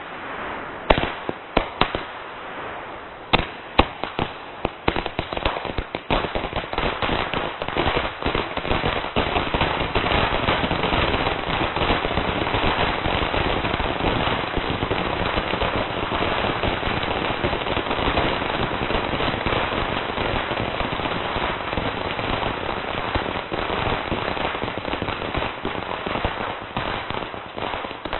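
Firecrackers going off in a long string: separate sharp bangs at first, building within about eight seconds into a dense, continuous crackle of rapid bangs that thins out near the end.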